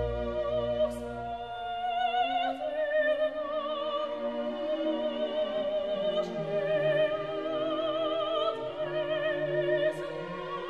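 Classical music: a slow operatic melody sung with wide vibrato over sustained lower accompaniment.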